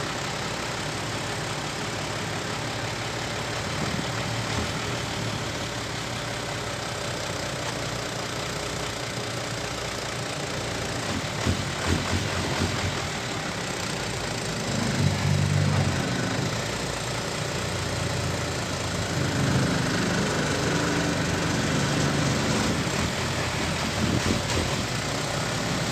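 Heavy diesel engines of earthmoving machinery running steadily. A low engine note swells louder about fifteen seconds in and again for several seconds from about nineteen seconds.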